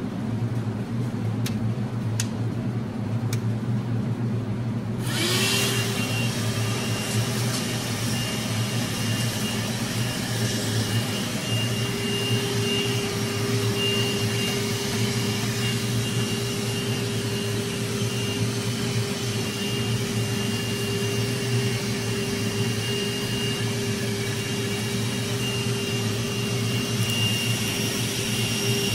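Cordless hand vacuum, fitted with a 3D-printed nozzle as a bee sampler, switching on about five seconds in. Its motor whine rises briefly as it spins up, then runs steadily while it draws bees from a hive. A steady low hum underlies it throughout.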